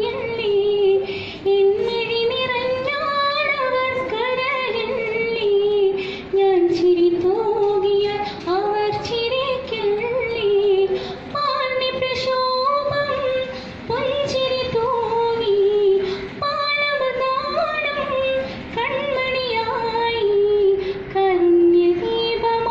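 A girl singing a melodic song solo into a handheld microphone, unaccompanied, in long held phrases with short breaths between them.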